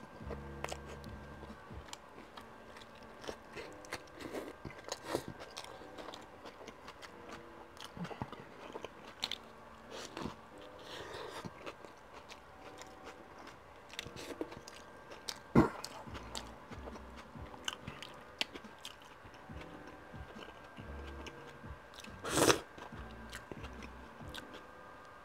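A person biting and chewing a chicken sub sandwich on cheddar cheese bread, close to a tabletop microphone, with many small wet mouth clicks. Two louder sharp sounds stand out, one a little past the middle and one near the end.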